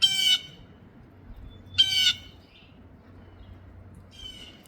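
Blue jay giving harsh calls: two loud ones, at the start and about two seconds in, and a fainter one near the end.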